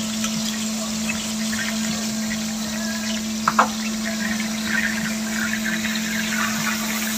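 Beef strip loin searing in margarine in a stainless steel pot: a steady sizzle with scattered crackles over a constant low hum. Two short clinks about three and a half seconds in.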